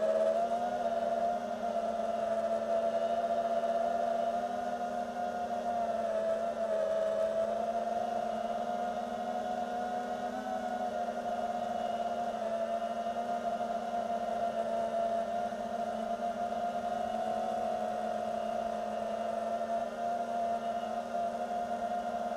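An FPV drone's electric motors and propellers whine steadily, the pitch wavering slightly up and down.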